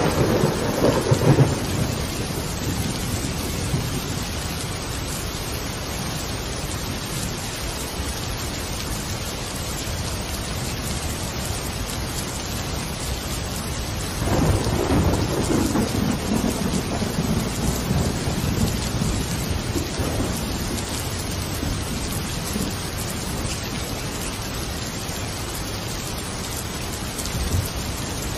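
Steady rain with rolling thunder: a rumble fading away in the first two seconds, and another swelling about fourteen seconds in and dying away over several seconds.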